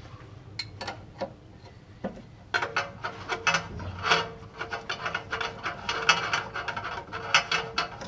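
Hand ratchet clicking while 90-degree fittings are tightened: a few scattered clicks, then quick continuous ratcheting from about two and a half seconds in.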